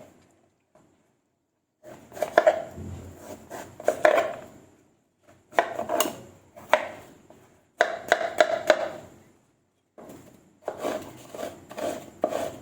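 A knife chopping on a cutting board in four short runs of quick knocks, starting about two seconds in.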